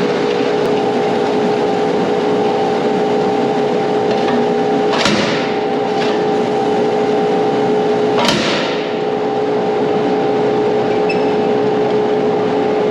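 Tractor running with a grain trailer tipped up to empty its wheat: a steady mechanical hum with a held whine, broken by two sharp bangs about five and eight seconds in.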